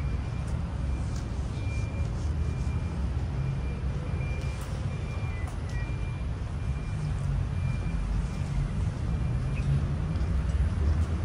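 A single high electronic beep repeating at an even pace, a little faster than once a second, over a steady low engine rumble.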